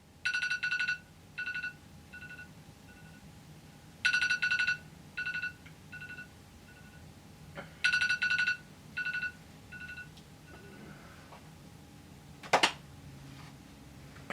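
A ringtone-like electronic tone plays three times, about four seconds apart, each time trailing off in a run of fading echoes. A single sharp hit follows near the end.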